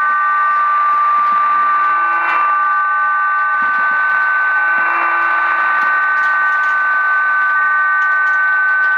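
Cuban HM01 numbers station received on shortwave: a steady two-note tone held over radio hiss and faint static crackles.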